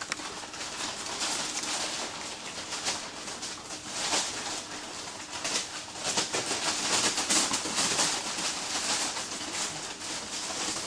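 Six-week-old Greater Swiss Mountain Dog puppies playing, making small low grunting and cooing sounds over a steady rustle and crinkle of paper, bedding and plastic tarp under their paws.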